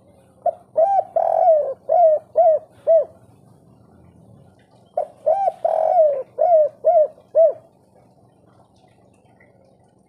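Spotted dove giving two cooing phrases about four and a half seconds apart. Each phrase is a short note, then a longer rolling coo, then three short, evenly spaced closing notes: the 'kuk 3' song type.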